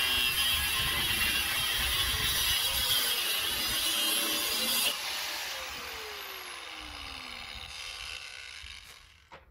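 Angle grinder with a cutting disc cutting through a seized, rusted steel exhaust manifold clamp. About five seconds in it comes off the cut and is switched off, and the disc winds down with a falling whine until it stops.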